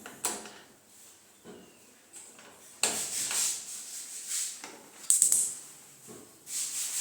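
Clicks and knocks with stretches of hiss as a freestanding gas cooker's knobs and spark igniter are worked to light the burners, with a quick cluster of clicks about five seconds in.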